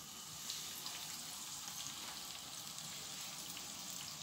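Flour-coated whole pot fish frying in hot oil in a pan: a steady sizzle with scattered small crackles and pops.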